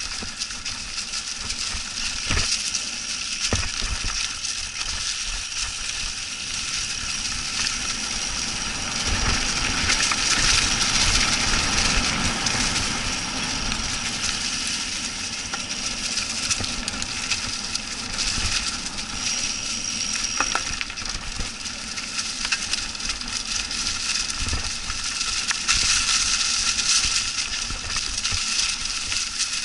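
Mountain bike rolling fast over dry fallen leaves: a continuous crunching and crackling of leaves under the tyres, with frequent knocks and rattles as the bike jolts over the bumpy trail.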